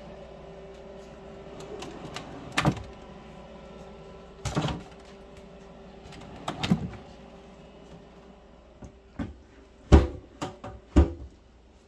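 A 120 mm, 120-volt cabinet exhaust fan running with a steady hum, with scattered knocks as the wooden cabinet door is handled. The door shuts with two loud thumps about ten and eleven seconds in.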